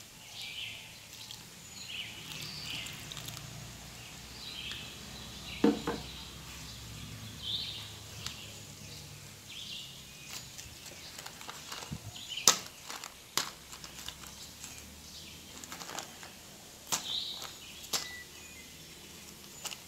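Small birds giving short high calls about once a second in the background. Several sharp crackles and knocks from black plastic polybags being gripped and handled, the loudest about halfway through.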